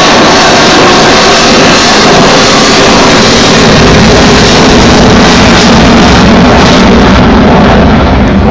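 Loud, steady jet noise from a fighter aircraft flying its display, near the limit of the phone microphone, with the deep rumble growing heavier about halfway through.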